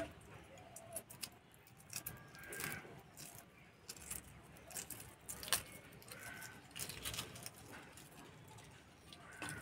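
Hard-boiled eggshells being cracked and peeled by hand over a steel bowl of water: scattered small, quiet clicks and crackles.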